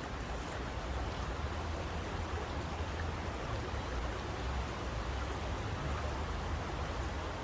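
Steady, unchanging white-noise rushing with a deep low rumble underneath, in the manner of running water.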